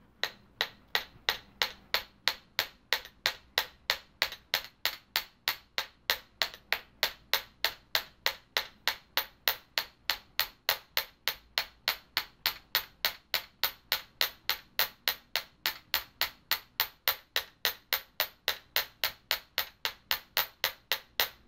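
Chasing hammer's flat planishing face tapping copper wire on a steel bench block: a steady run of sharp metallic taps, about three a second, paddling (flattening and spreading) the wire's end with drawing J strokes. The block rests on a leg rather than a bench, which damps its ring.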